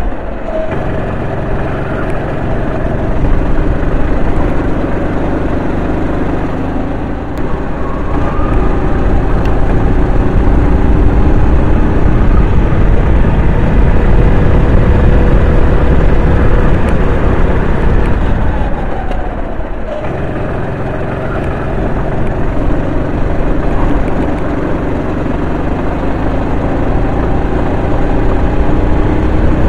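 Racing go-kart engine at high revs, its pitch climbing steadily as it accelerates down the straights and dropping off twice as the driver lifts for corners, once just at the start and once about two-thirds of the way through.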